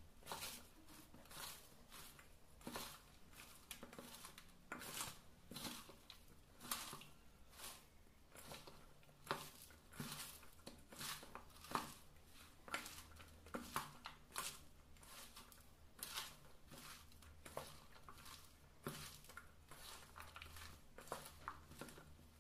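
Faint, irregular rustling and crunching as hands squeeze and toss shredded cabbage, onion and potato with flour and spices in a steel mixing bowl, with now and then a light scrape or tap against the bowl.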